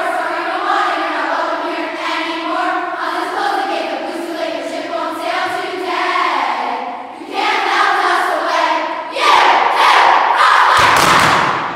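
Large group of girls singing a march together, then breaking into a loud shouted finish about nine seconds in, with a thud under it near the end.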